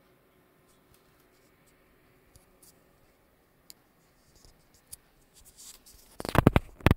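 Mostly quiet room with faint scattered ticks. About six seconds in comes a short burst of loud scratchy rustling with two or three sharp knocks.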